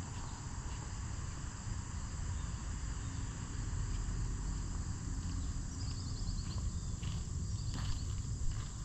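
Outdoor background with a steady low rumble and a steady high hiss. About six seconds in comes a short, high, pulsed insect chirp, followed by a few faint clicks.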